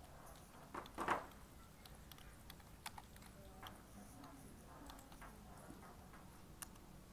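Computer keyboard being typed on, a scattered run of light key clicks as a search phrase is entered. A brief vocal sound about a second in is the loudest thing.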